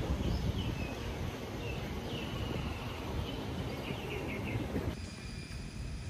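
Birds chirping over a low rumble of wind on the microphone. About five seconds in, this cuts to a quieter outdoor background with a steady high-pitched hum.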